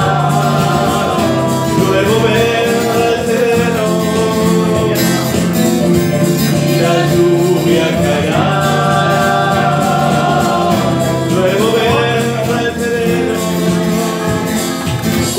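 Live instrumental passage of a folk song: a violin carries the melody with sustained, sliding notes over acoustic guitar and keyboard accompaniment.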